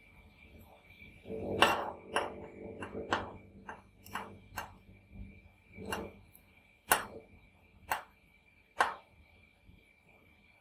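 Metal spatula scraping across a stainless steel ice-cream cold plate, rolling frozen Oreo ice cream. A scraping stretch with sharp clicks comes about a second in, then about six single sharp taps of the spatula against the plate, each a second or so apart, over a faint steady high tone.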